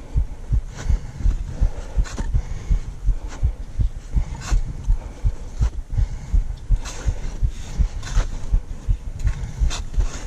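A climber's steps and body movement jostling a carried microphone: rhythmic low thumps two or three times a second, with a short hissy stroke about every second.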